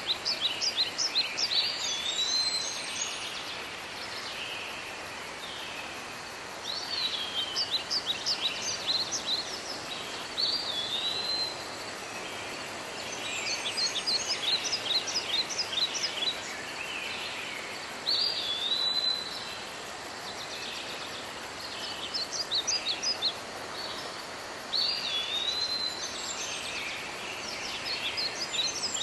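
A songbird singing short repeated phrases every few seconds, each a quick run of high notes ending in a short slurred whistle, over a steady background hiss.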